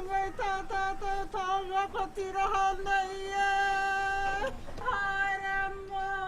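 A woman's solo voice in a Māori karanga, the ceremonial call at a tangi (funeral): long, high held notes with quick wavering turns, broken by a short breath about two-thirds of the way through.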